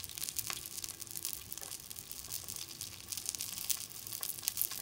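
Meat sizzling on a hot griddle pan, an even crackle with many scattered sharp pops of spitting fat.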